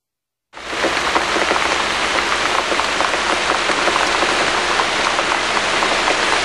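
Steady heavy rain, a dense even hiss full of individual drop impacts, starting abruptly about half a second in.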